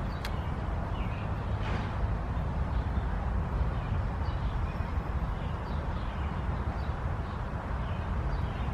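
Outdoor background: a steady low rumble with a few faint, short high calls scattered through it and a single brief click near the start.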